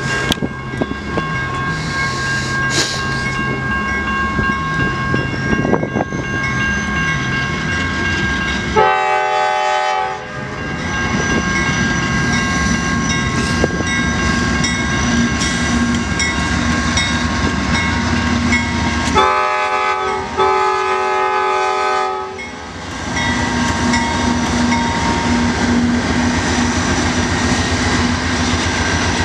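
CSX freight train at a grade crossing: the locomotive's horn sounds one blast about nine seconds in, then two more close together around twenty seconds, the second one longer. Between the blasts the diesel locomotive's engine runs and the train's wheels rumble and clack over the crossing, while the crossing bell rings steadily.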